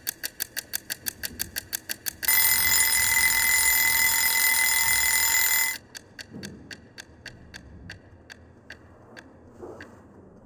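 Egg-shaped wind-up kitchen timer ticking quickly, then its bell rings for about three and a half seconds as the dial reaches zero, starting about two seconds in. After the ring, slower ticks fade out as the mechanism runs down.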